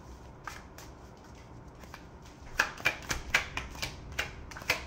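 A deck of cards being shuffled by hand: a few soft card clicks at first, then a quicker run of sharper card snaps from about halfway in.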